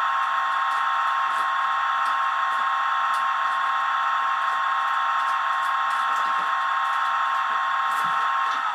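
DCC sound decoder in a 00 gauge model diesel locomotive playing a steady engine idle through its small on-board speaker, heard as a buzzy, unchanging tone. Right at the end the engine note dips in pitch and starts to change.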